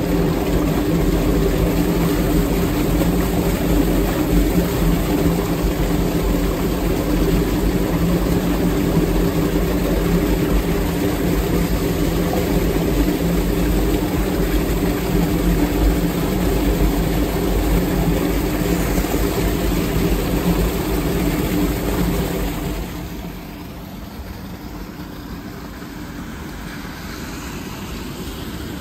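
Floodwater pouring down through a storm drain grate, a loud steady rushing drone with a low hum in it; about 22 seconds in it gives way to a much quieter ambience.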